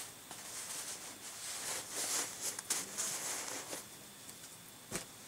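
Soft rustling and handling of small doll clothes, with one short sharp click about five seconds in.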